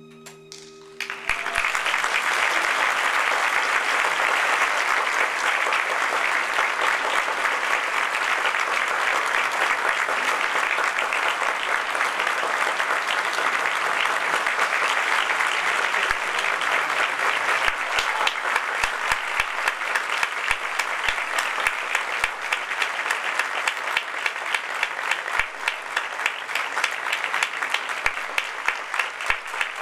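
The last held note of the music dies away and a theatre audience breaks into applause about a second in, which carries on steadily. In the second half, single sharp claps stand out in a regular beat of about two a second.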